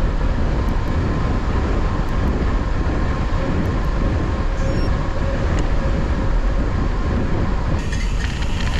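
Wind rushing over the camera's microphone as a mountain bike goes fast downhill: a steady, loud, deep rumble, a little brighter near the end.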